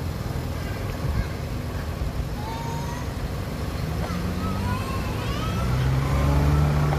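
Low, steady engine rumble of a motor vehicle, growing louder near the end, with a few short high-pitched gliding calls over it.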